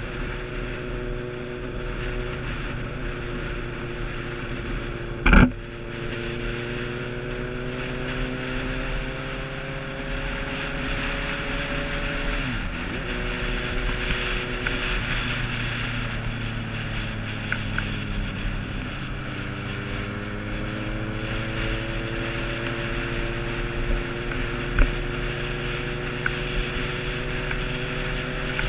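Motorcycle engine heard from the rider's seat while riding, its pitch climbing as it accelerates and dipping twice as the throttle eases, with wind rushing over the microphone. A sharp knock about five seconds in is the loudest sound.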